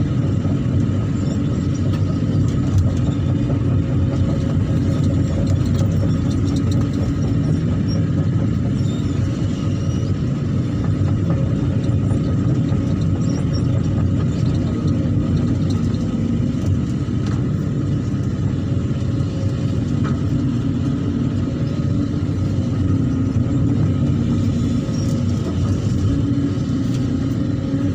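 Excavator's diesel engine running steadily under load while the machine digs and shifts mud. It is a continuous low rumble with a faint steady tone above it.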